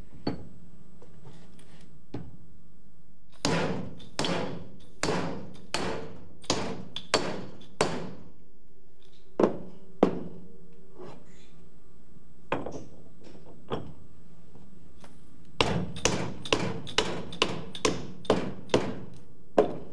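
Repeated knocks, like hammer or mallet blows on parts being fitted together in an assembly job. A run of about seven blows starts a few seconds in, a few single knocks follow, and a quicker run of about nine comes near the end, all over a steady hum.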